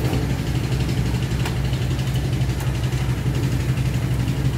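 Single-cylinder diesel engine of a three-wheeled công nông farm truck running steadily with an even, rapid chugging, loaded with sand.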